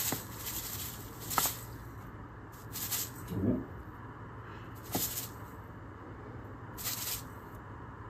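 Fine granulated sugar poured from a bag into a glass bowl in several short spurts, each a soft hissing trickle, with a brief low sound about midway.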